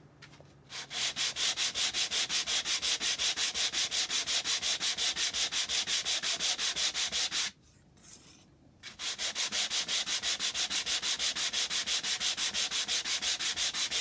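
Hand sanding: abrasive paper on a hand-held sanding block rubbed back and forth over the pear-wood face of a thin plywood fretwork panel, in rapid, even strokes. The strokes stop for about a second past the middle, then carry on at the same pace.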